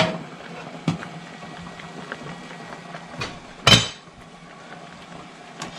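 A steel pot of clams boiling on an electric stove: a steady hiss over a faint low hum, broken by a few short knocks and clinks, the loudest about three and a half seconds in.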